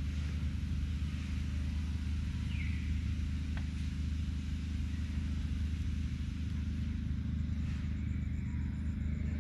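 A steady low rumble with a hum in it, unchanging throughout; a faint short high squeak slides down about two and a half seconds in.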